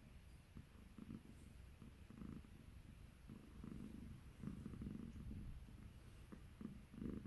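Calico cat purring softly in slow, repeated swells while held against a fleece jacket.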